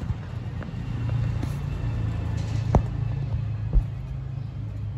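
Low, steady engine rumble, louder through the middle, with two sharp clicks about a second apart.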